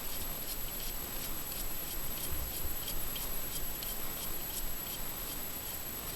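Faint, irregular clicking and scraping of a hand tool working on a small-engine carburetor, as its choke assembly is being taken off.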